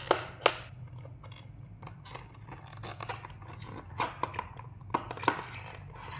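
Scattered small clicks, taps and scrapes from objects being handled, with one sharper knock about half a second in.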